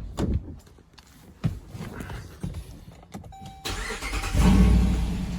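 A few knocks and clicks, then the 2018 Dodge Durango R/T's 5.7-litre HEMI V8 is started about three and a half seconds in: it catches, flares up loudest a second later and settles into a steady idle.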